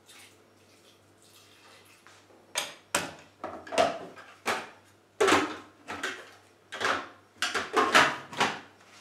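Krups Prep & Cook food processor pulsed in a run of about a dozen short, loud bursts, starting about two and a half seconds in, blending parsnip puree a bit at a time with its blade.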